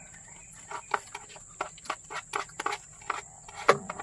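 A quick, irregular run of short clicks and taps, the loudest near the end, over a steady high-pitched insect drone.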